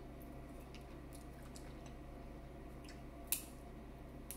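Faint eating sounds, soft chewing and clicks from handling food, over a steady low hum. There is a sharper click about three seconds in and another near the end.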